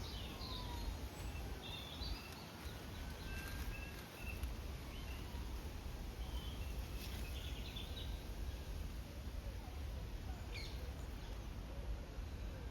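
Birds chirping off and on, short high chirps mixed with a few longer whistled glides, over a steady low rumble.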